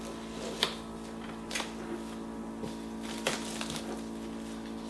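Plastic wrap being pulled from its box and handled: a few short crinkles and crackles, over a steady low hum.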